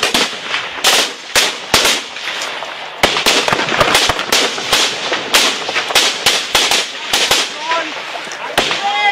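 Rifle gunfire: irregular single shots and quick strings of shots, coming thicker from about three seconds in.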